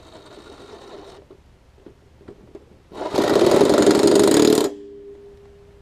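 Cordless 18V impact driver running in a push mower's blade bolt. A short free spin cuts off about a second in, then after a pause comes about a second and a half of loud, rapid hammering as the tool's impact mechanism drives the bolt tight. A faint steady hum lingers for a moment after it stops.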